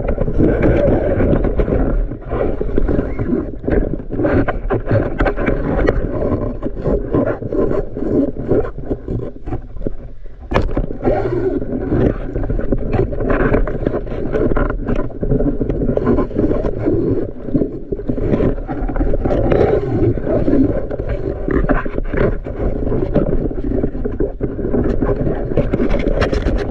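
Muffled underwater rushing and rumbling picked up through an action camera's waterproof housing, with many small knocks and ticks throughout.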